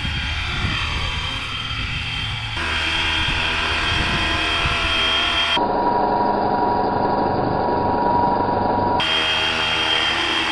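Electric RC helicopter hovering: a steady high motor whine over rotor noise. Its tone and level jump abruptly three times where shots are cut together.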